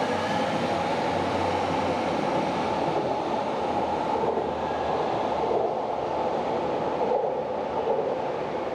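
Berlin U-Bahn train running on an elevated viaduct track: a steady rumble of wheels on rails that eases off a little near the end.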